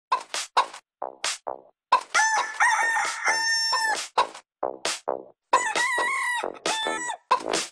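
Chicken calls, clucks and held squawks, sampled and chopped into a stuttering rhythm for a techno track. Short, sharply cut calls repeat in quick succession, with longer held squawks about two seconds in and again past the middle.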